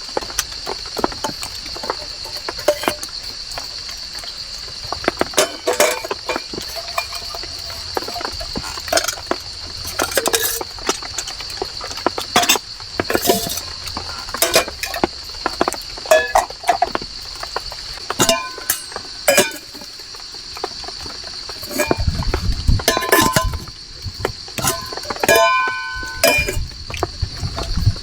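Stainless steel camping pots and lids clinking and knocking together as they are handled, some knocks ringing briefly. A steady high insect drone runs underneath.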